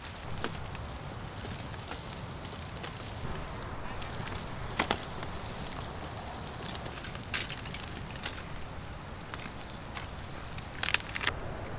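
Wood campfire burning under a grill grate, crackling with scattered sharp pops. The loudest pops come about five seconds in and again near the end.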